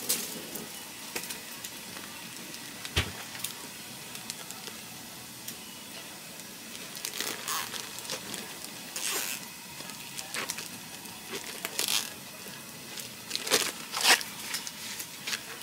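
Plastic poultry shrink bag crinkling and rustling in short, irregular bursts as it is handled around a whole chicken and its neck twisted closed, over a faint steady hiss.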